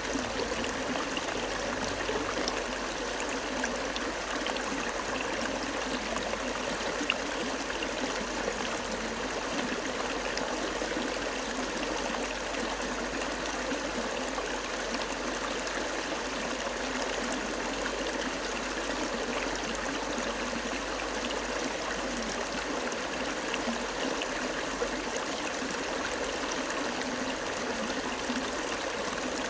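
Water flowing steadily, an even rushing and trickling with no pauses.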